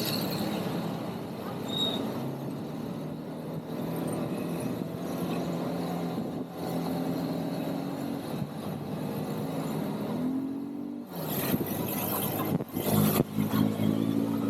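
ATV engine running under way at a steady pitch, revving up about ten seconds in. Brief loud rushing bursts cover it a little after that, and it revs up again near the end.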